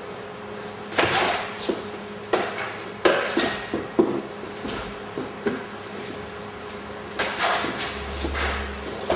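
Scuffling and thuds of two people grappling on padded training mats, with several sharp knocks in the first few seconds and another cluster near the end as bodies and feet strike the mat.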